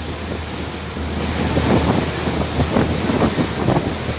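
Wind buffeting the microphone and the rushing, splashing water of a motorboat's churning wake, over the steady low hum of the boat's engine.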